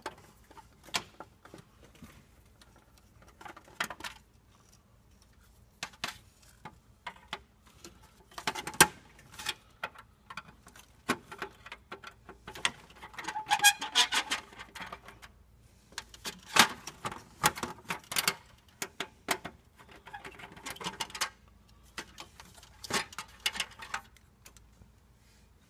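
Screws being turned out of a photocopier's sheet-metal cover with a long screwdriver: irregular clicks, scrapes and metallic rattles. Every so often there is a cluster of ringing metal taps as the tool and panel are handled.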